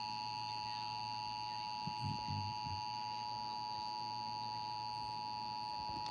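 Emergency Alert System attention signal: a steady, unbroken two-note tone held at an even level, the alert that marks the start of an emergency broadcast, here a national EAS test.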